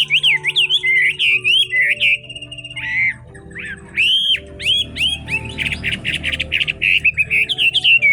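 Chinese hwamei singing a loud, varied song of whistled phrases that swoop up and down, with a fast run of harsh rasping notes a little past the middle. Background music underneath.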